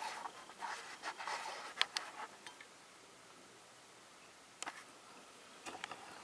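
Light rustling and scattered small clicks of fingers handling the opened Acer Switch Alpha 12 tablet's case and internals. A short quiet follows, then a few more light clicks near the end.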